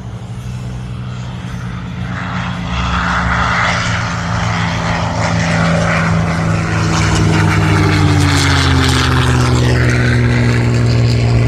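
Propeller airplane flying past, its engine drone growing louder and dropping in pitch in the second half as it goes by.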